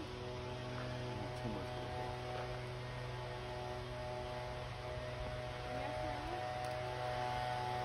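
A steady hum made of several unchanging tones, electrical or motor-like, with faint voices briefly in the background.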